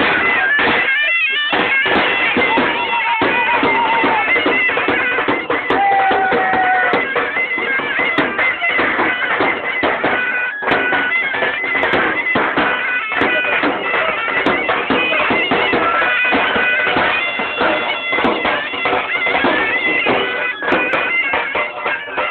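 Bagpipe music: a steady drone under a wavering melody, with many short clicks mixed in.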